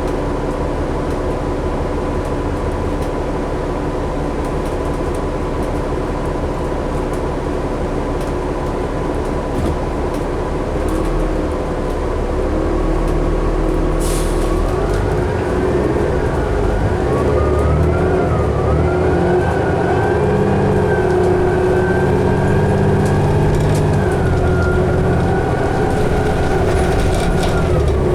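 Interior sound of a 2011 New Flyer D60LFR articulated diesel bus under way: the engine and drivetrain running steadily, then from about halfway a rising engine note and whine as the bus picks up speed, holding high to the end. A short hiss a little before halfway.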